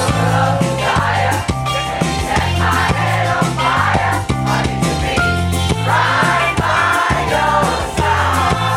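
Music with singing voices over a steady beat and bass line.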